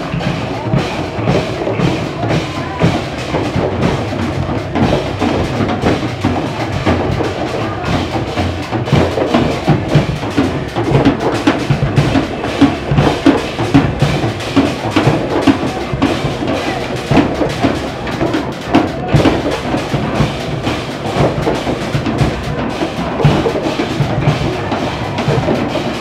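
Many hands striking improvised percussion instruments made of cooking pots, a metal tub and scrap-metal contraptions: a dense, continuous clatter of drum and metal hits with no steady beat.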